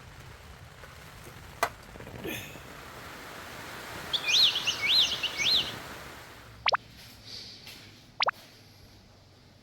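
A wild bird calling outdoors: a quick run of rising-and-falling chirps, then two short, sharp downward whistles about a second and a half apart. A steady hiss of rain or wind runs underneath.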